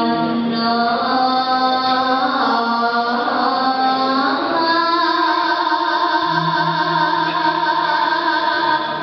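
Sinden, a Javanese female gamelan singer, singing into a microphone: long held notes with sliding, ornamented turns between them. A lower steady tone joins about six seconds in.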